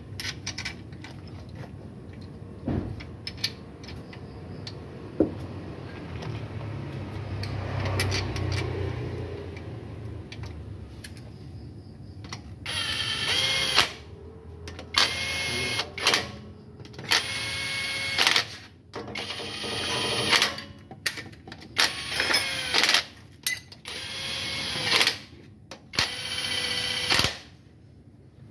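Handheld power tool run in about eight short bursts of a second or so each, its motor whine rising at the start of each burst. These follow several seconds of quieter clicks and handling of metal parts.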